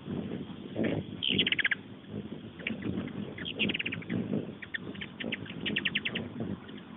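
Hummingbirds chittering around a feeder: quick runs of sharp, high chips, the loudest about a second in, again near the middle and near the end, with scattered single chips between. A low, muffled, uneven rumble runs underneath.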